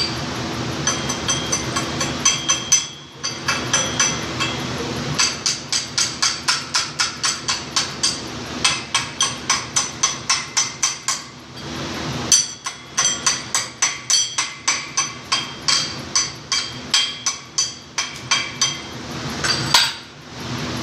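A hammer striking steel in quick, even runs of about two to three ringing blows a second, with a few short pauses, over a steady low workshop hum.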